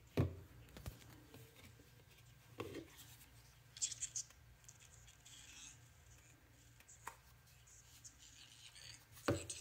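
Handling noise from a plastic Sony FM/AM Walkman Sports radio held in the hand: faint knocks and a short scratchy rub as fingers grip and turn the case, with one sharp click about seven seconds in.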